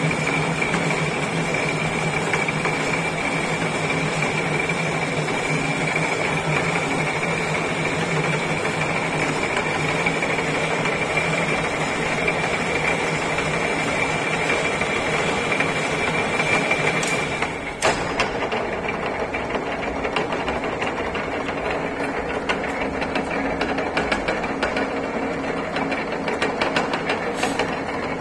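Metal lathe running and cutting a thread along a metal bar held in a four-jaw chuck, with a steady hum and a steady high whine. About 18 seconds in there is a sharp click, the whine stops, and the machine runs on with a busier rattle of fast small clicks.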